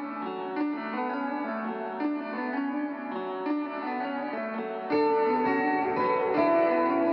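Background music led by a plucked guitar picking out a repeating melody, with a fuller, louder part joining about five seconds in.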